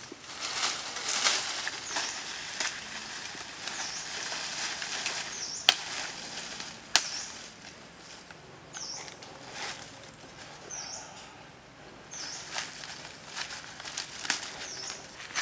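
Rustling of leafy branches and footsteps on dry leaf litter, with two sharp cracks of a machete striking a wooden stick about six and seven seconds in. A bird chirps briefly every second or two.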